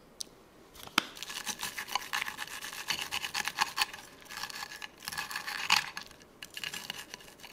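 A knife saws through the crisp panko-breaded crust of a fried beef milanesa steak, making a run of crackling crunches and scrapes. It starts with a sharp click about a second in.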